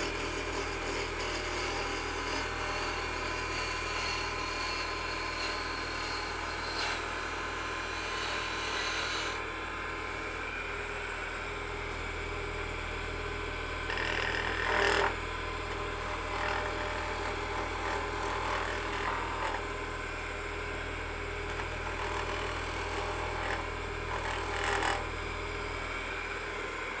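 Wood lathe running with a steady motor hum while a gouge takes shaping cuts on a spinning piece of green wood. The cutting hiss is continuous for about the first nine seconds, then comes back in a few shorter passes about halfway through and near the end.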